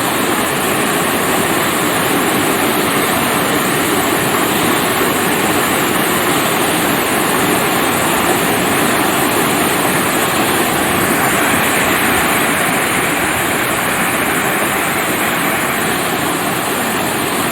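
Waterfall roaring, a loud steady rush of falling water.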